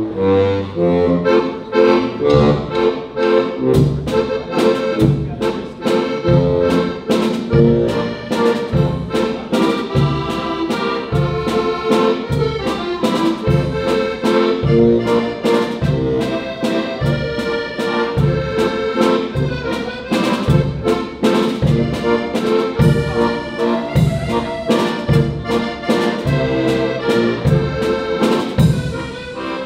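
Diatonic button accordion (heligonka) playing a tune, with a drum kit keeping a steady beat.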